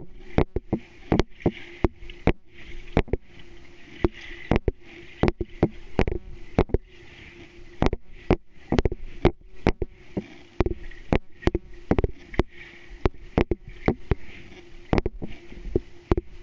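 Underwater sound of a swimming pool heard through a submerged camera: irregular sharp clicks and knocks, several a second, over a steady hum.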